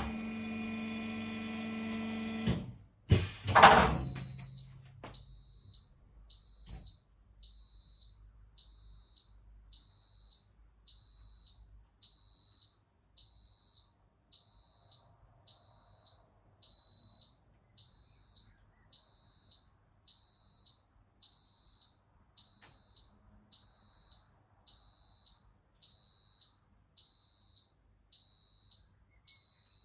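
A high electronic beep repeating about once a second, each beep about half a second long, like a smoke alarm sounding. Before it starts, about four seconds in, there is a loud sustained chord-like sound and a sharp hit.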